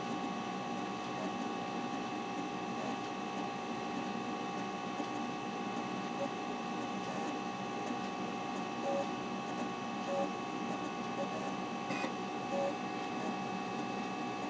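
Macintosh SE running through its startup: a steady machine hum from the fan and CRT, with a few high whining tones held throughout. Faint short ticks now and then come from the disk drives as the system loads.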